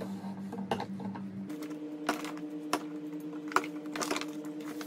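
Plastic foaming hand-soap pump bottles being lifted from a paper shopping bag and set down on a marble tabletop: irregular light clicks and knocks, about a dozen.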